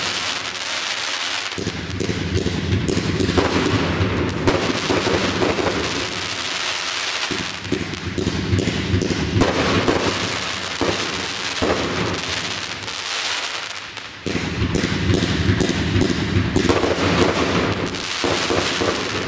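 Professional display fireworks firing and bursting in quick succession: a dense run of bangs and crackle. The noise drops briefly about fourteen seconds in, then comes back suddenly.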